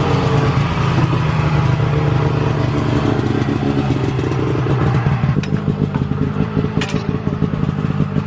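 Small vehicle engine running steadily, then settling into an uneven, pulsing idle about five seconds in.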